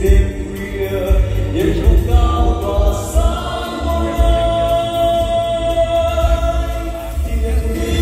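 A man sings a Vietnamese song into a microphone over amplified music with a strong bass beat, holding one long note through the middle.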